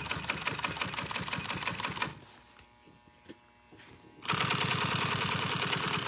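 Sewing machine running fast, stitching a side piece onto a pontoon seat cover: about two seconds of stitching, a pause of about two seconds with one faint click, then stitching again.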